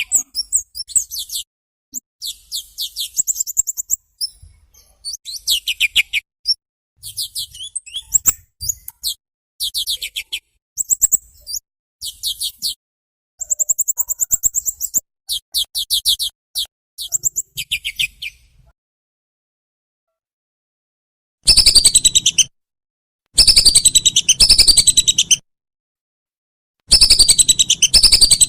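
Recorded small-bird song: short, rapid, high-pitched trilled phrases repeated with brief gaps. After a pause of about three seconds, louder blocks of quickly repeated falling notes follow.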